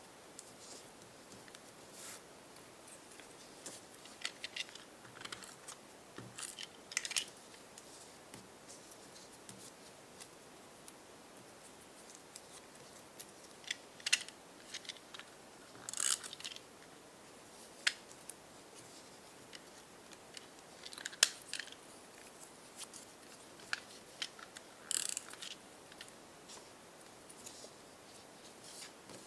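Sporadic crisp crinkles and ticks of stiff paper being handled: small folded paper triangles picked up, set in place and pressed down onto double-sided tape.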